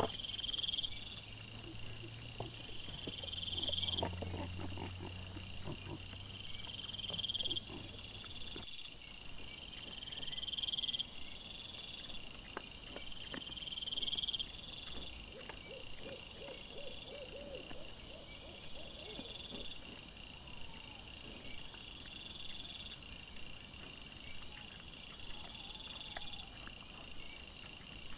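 Night insects such as crickets chirping in a steady repeating pattern, with a rising chirp every second or two, over faint rustles and clicks from wild boar foraging. A low hum runs under the first third and stops suddenly.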